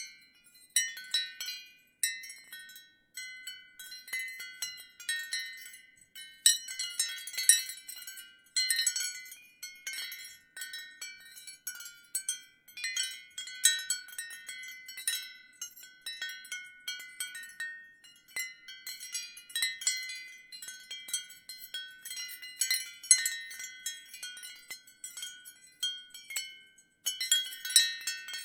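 Ceramic wind chime clinking irregularly in the wind, its pieces knocking together in clusters of short, high, bright tones with brief lulls between gusts.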